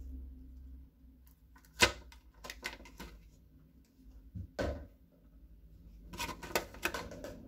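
Scattered clicks and light knocks of a clear plastic insect cup and lid being handled: a sharp click about two seconds in, a few more soon after, a duller thump about halfway, and a quick run of clicks near the end.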